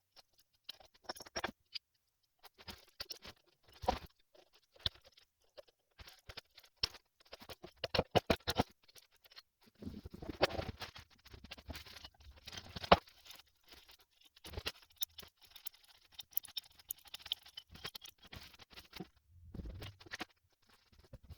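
Hand tools and small metal parts clicking, clinking and scraping irregularly during hands-on work on a pickup's A/C compressor clutch, with one sharper click about halfway through.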